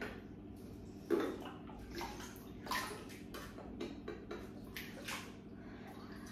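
Thick green bath slime sloshing and squelching in a bathtub as a person shifts about in it, with scattered drips and small slops, the loudest about a second in.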